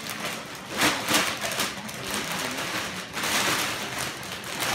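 Plastic bag crinkling and rustling in irregular bursts as a kitten moves about inside it and shifts it across a tile floor.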